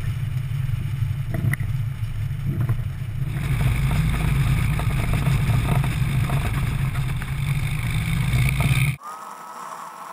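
1954 Piper L-21B Super Cub's engine running with wind on the camera, as the plane rolls on a grass strip. The sound gets louder about three seconds in. Near the end it cuts suddenly to a much quieter steady hum with a faint tone.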